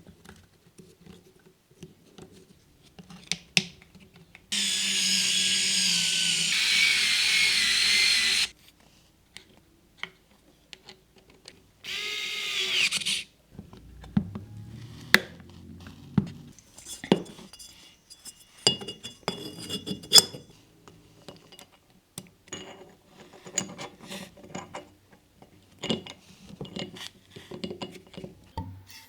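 A small handheld electric motor tool whines for about four seconds, then again briefly about eight seconds later, amid scattered small clicks and taps of handling parts.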